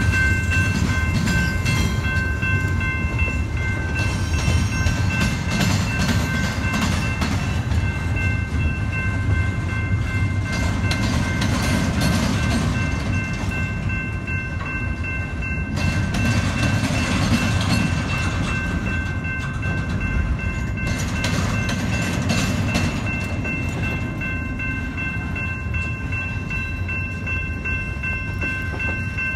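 Double-stack intermodal freight train rolling past close by: a steady rumble of steel wheels on the rails, with a steady high-pitched squeal over it.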